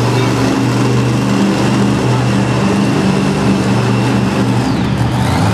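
Monster truck engines running loud, a deep steady drone with little change in pitch.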